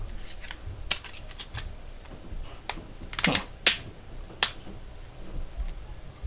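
Sharp plastic clicks and snaps from handling a reassembled Samsung Galaxy S3 phone, a few scattered ones and then a quick cluster a little past the middle, the loudest two single snaps just after it.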